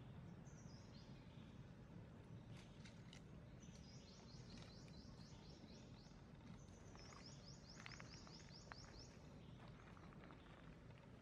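Faint outdoor ambience in which a bird gives several runs of rapid, high trilled notes, over a low steady background hum.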